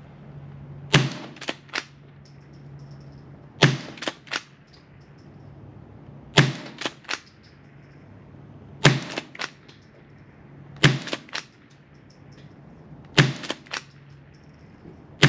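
Rossi Gallery .22 LR pump-action rifle firing about seven shots, one every two to three seconds. Each crack is followed by two quick clacks as the pump is worked back and forward to chamber the next round.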